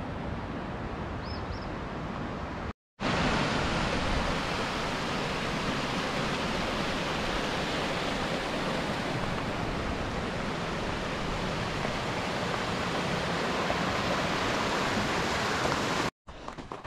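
Rushing water of a mountain creek tumbling over rocks, a steady rush. It breaks off abruptly about three seconds in and comes back louder, then cuts off again just before the end.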